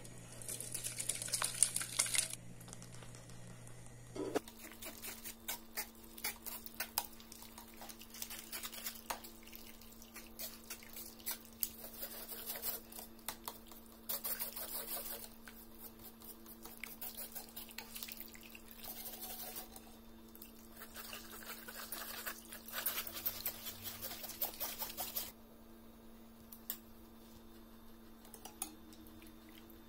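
Cooked tomato mixture poured into a fine metal mesh strainer with a brief splash, then a utensil pressing and scraping the pulp through the mesh: irregular small clicks and scrapes with wet dripping, stopping near the end.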